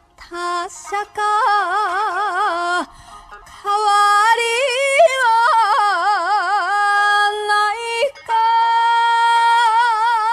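Female enka singing: long held notes with a wide, slow vibrato, sung in three phrases with short breaths between them.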